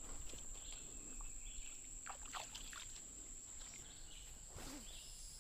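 Faint outdoor ambience: a steady, thin high-pitched tone under a soft background hiss, with a few faint short ticks and chirps around two seconds in.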